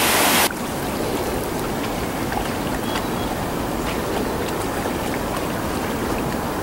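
A waterfall's rush cuts off suddenly about half a second in, giving way to a steady, softer wash of water along a rocky shore with faint scattered ticks.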